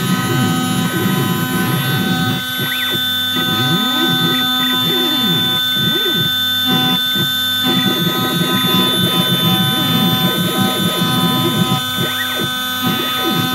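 CNC engraving machine running a job: a steady whine from the spindle, over motor tones that rise and fall in pitch as the axes move the cutter.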